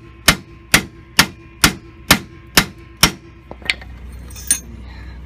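Hammer blows on steel at a VW T4's seized track rod end ball joint, whose pin keeps spinning with its nut. About two blows a second, each with a short metallic ring; seven blows, stopping about three seconds in, then a few light metal clicks.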